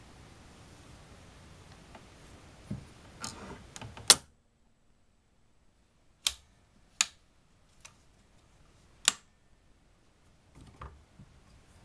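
Sharp metallic clicks and clacks from a Walther LGM-2 air rifle's lever and loading mechanism being worked by hand, about eight or nine separate clicks, the loudest about four seconds in. The rifle is being cocked and loaded for a shot.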